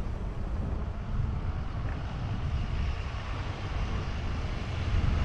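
Wind buffeting the microphone with an uneven low rumble while riding along at speed, over a steady hiss of rolling road noise.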